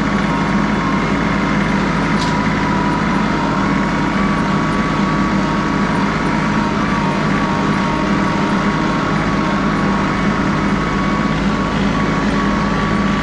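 John Deere 3038E compact tractor's three-cylinder diesel engine running steadily, with one brief high tick about two seconds in.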